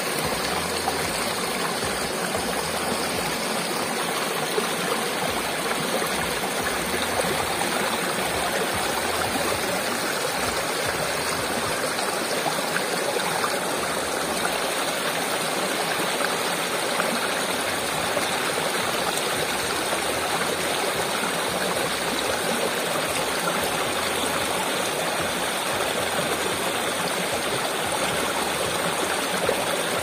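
Shallow rocky stream running over stones and a low cascade, a steady rushing, splashing flow of water.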